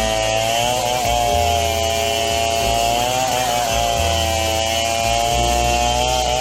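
A small engine running steadily at high speed, its pitch wavering slightly every second or so.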